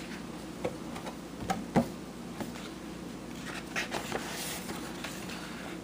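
Steady low hum with a few faint clicks and rustles of handling scattered through it.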